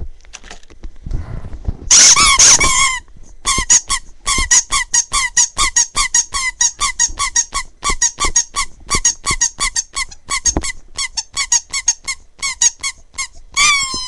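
Rubber squeaky toy squeezed and chewed: one long squeak about two seconds in, then a fast run of short squeaks, about four a second.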